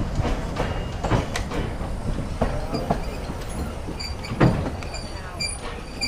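Narrow-gauge railway carriage wheels knocking over rail joints as the train slows into the station, the knocks coming further apart, with a heavier clunk about four and a half seconds in. A thin high wheel or brake squeal sets in near the end.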